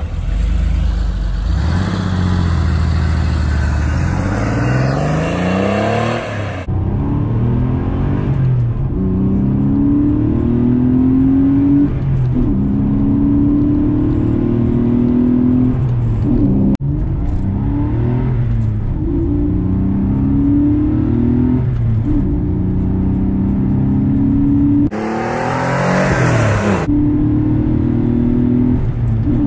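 Porsche 964's air-cooled flat-six accelerating hard: first pulling away with its pitch climbing, then heard from inside the cabin revving up through the gears, the pitch rising steadily in each gear and dropping at each upshift every few seconds. Near the end it is briefly heard from outside as the car drives past.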